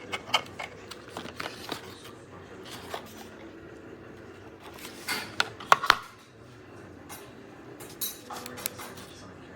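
Irregular clicks, taps and knocks of small hard objects being handled, the loudest cluster about five to six seconds in.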